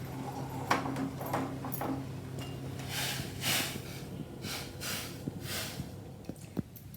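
Hot herbal kadha being poured from a pan through a strainer into a glass, in several short pours between about three and six seconds, with a few light clicks of metal utensils. A low hum stops about three seconds in.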